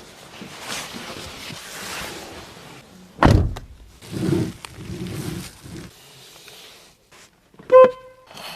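Car door and body sounds on a Wuling Hongguang S: a rustling hiss, then a door shutting with a loud thunk about three seconds in, followed by a few duller knocks. A short beep-like tone sounds near the end.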